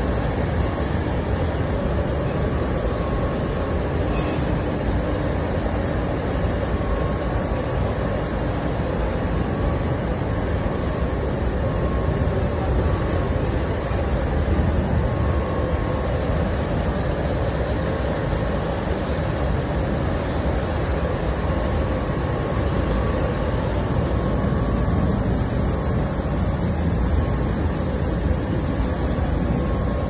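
Arioli UNIWASH continuous open-width washing machine running, with fabric passing over its rollers: a steady, even mechanical noise with a deep rumble.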